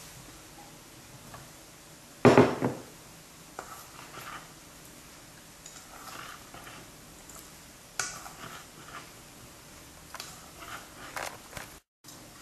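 A loud clatter about two seconds in, then a spoon scraping and clinking against a steel mixing bowl at intervals as cubed raw mango is stirred into pickle masala.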